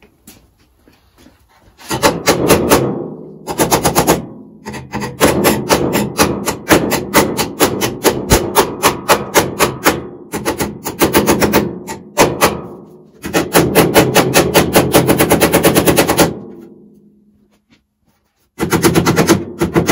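Hammer striking a classic Mini's steel scuttle panel in quick runs of sharp, rapid taps, each run a second to a few seconds long, the sheet metal ringing after the strikes.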